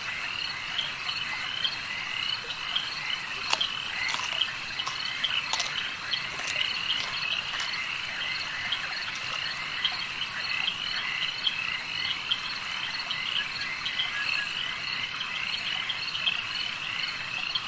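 Night chorus of frogs and insects: a steady, dense chirping made of many rapid, repeated short calls, with a few faint sharp clicks.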